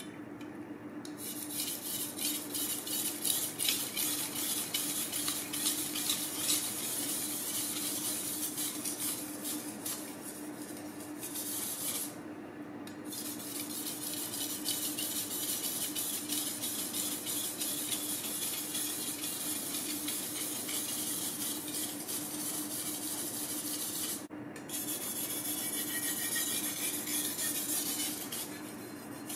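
Damasteel Chinese cleaver being worked back and forth on a wet natural whetstone: a long run of quick gritty scraping strokes of steel on stone, stopping briefly twice, with a faint steady hum underneath.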